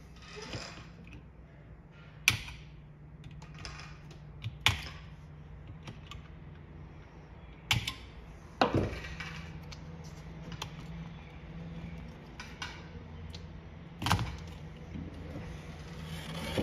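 Sharp metal-and-plastic clicks and snaps as pliers work the tabs holding a blower motor's control board until the board comes free, about five loud ones at irregular intervals with smaller ticks between. A steady low hum runs underneath.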